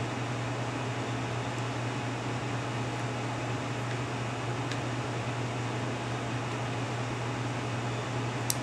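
Steady low hum with an even hiss, like a fan running, and one small sharp click near the end.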